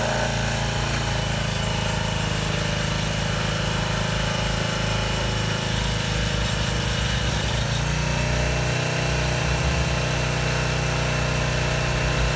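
Engine of a 1998 Barko 160 log loader running steadily, with a thin high steady tone above it. About eight seconds in the engine note shifts and grows heavier.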